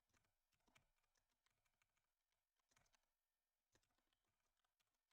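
Near silence, with very faint computer keyboard typing: irregular key clicks.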